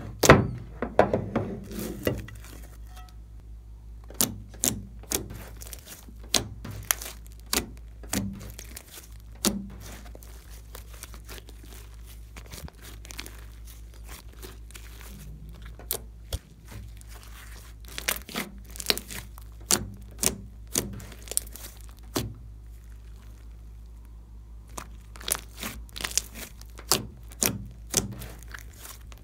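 Thick glossy slime being squeezed, stretched and poked by hand, giving sharp, irregular clicks and pops as air trapped in it bursts, in clusters with quieter stretches between.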